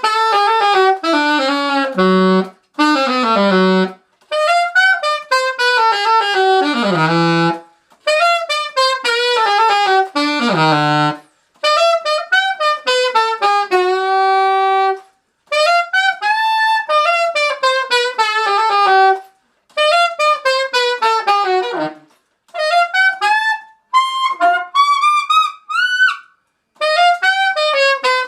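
Selmer Mark VI alto saxophone played unaccompanied: short syncopated funk phrases of quick notes, many falling in runs and some ending on a held note, with brief rests between phrases.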